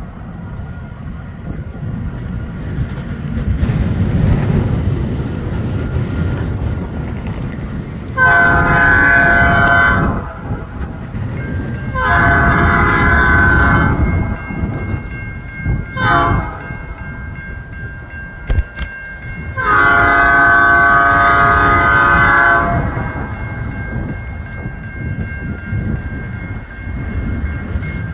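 Norfolk Southern locomotive air horn sounding the grade-crossing pattern: two long blasts, one short and a final long one, each a multi-note chord. Under it runs the steady rumble of the approaching train.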